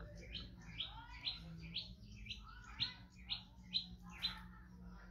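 A bird calling in a steady series of short, high chirps, about two a second.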